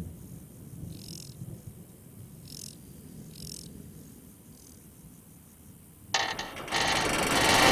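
Short, high insect chirps, widely spaced, over a quiet background. About six seconds in, a loud, harsh noise starts suddenly and swells toward the end.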